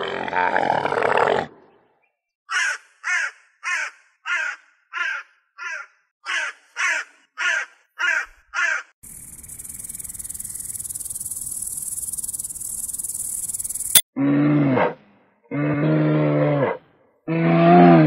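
A sequence of animal calls: a Bactrian camel's call at the start, then a crow giving about a dozen short caws, about two a second. Next comes a grasshopper's steady high-pitched stridulation for about five seconds, cut off suddenly. Last, a brown bear gives three deep calls, the last running on past the end.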